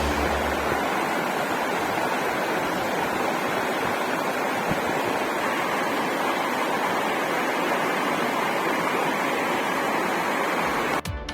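Steady rush of falling water from a waterfall, an even hiss with no change in level.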